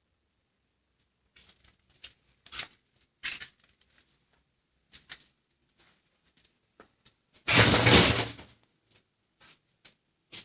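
Scattered light clicks and knocks, with one louder rough scraping rattle lasting about a second around seven and a half seconds in.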